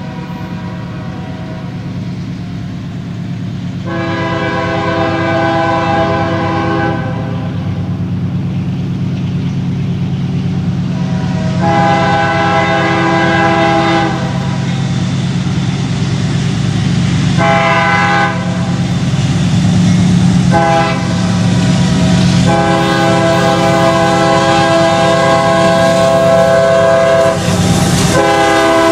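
CSX diesel freight locomotive's multi-chime air horn sounding long, long, short, long, the grade-crossing signal, over the steady rumble of the engines and rolling cars. The sound grows louder as the train approaches.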